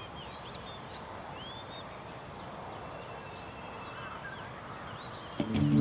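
Birds chirping against a steady outdoor hiss. Guitar music comes in near the end.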